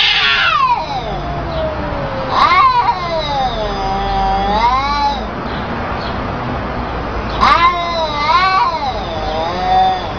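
Domestic cats trading long, drawn-out meows: a falling call at the start, then two long calls that waver up and down in pitch, a couple of seconds apart.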